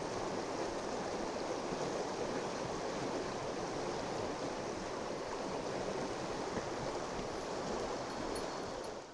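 Oirase Stream, a mountain stream, running with a steady, even rush of water.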